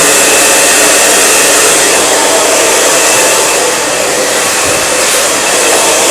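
Handheld hair blow dryer running steadily: a loud, even rush of air with a faint high whine, briefly a little softer about four seconds in.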